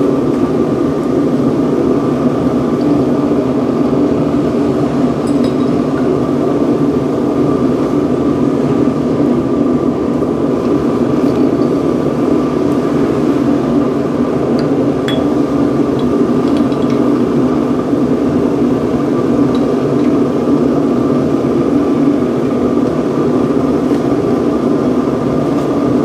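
Forced-air propane burner of a homemade casting furnace firing steadily, its salvaged microwave-oven blower giving a constant steady hum and the flame a steady rush. A few faint clinks sound over it.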